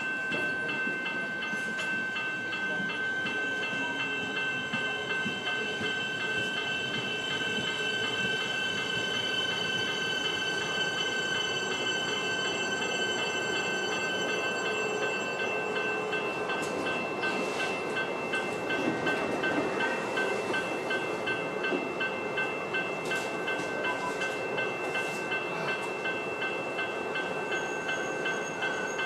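Level crossing bells ringing steadily with a rapid repeated ding while the boom gates are down. In the second half an electric suburban train's rumble builds as it pulls into the platform, with a few clanks.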